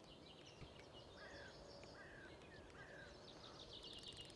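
Faint outdoor birdsong: a bird repeating quick high chirps throughout, with several short falling calls in the middle.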